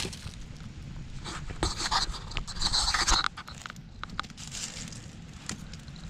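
Wood being laid on a smouldering campfire: scattered knocks and rustling, with a louder breathy hiss for about two seconds in the middle.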